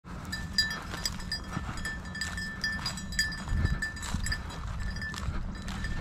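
A small bell on a bird dog's collar jingling in quick, irregular rings as the dog moves through the grass, over a low steady rumble.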